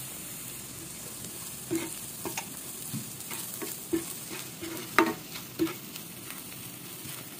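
Onions and spices sizzling in a non-stick frying pan, with a spatula scraping and knocking against the pan as they are stirred. The knocks begin a couple of seconds in, the sharpest one about five seconds in.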